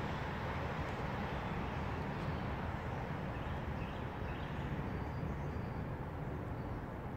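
Steady background noise: a low rumble and hum under an even hiss, with a few faint short high chirps about four seconds in.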